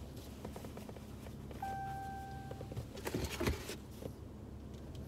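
A single steady beep, a bit over a second long, with a few soft clicks and rustles after it and a low steady hum underneath.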